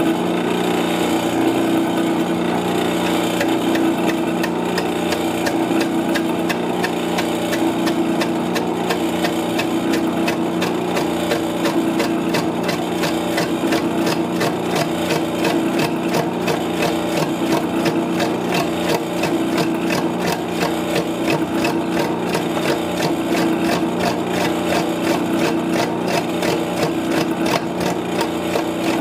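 Metal lathe turning a large block of wood, its tool bit cutting the spinning wood: a rapid, regular ticking as the bit strikes the out-of-round wood on each revolution, over the steady hum of the lathe's motor.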